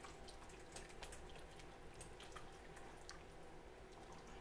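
Faint, scattered small pops and ticks of soup bubbling in a stainless stockpot while a wooden spoon stirs noodles through it.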